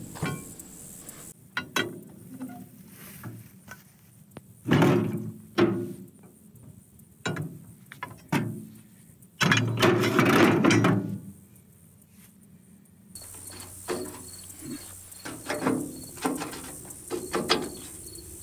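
Irregular metal clanks, knocks and scrapes of hand tools working a rotary mower's blade pan free of its gearbox output shaft, the loudest a longer clattering stretch about halfway through. From about two-thirds of the way in, insects chirp steadily in the background.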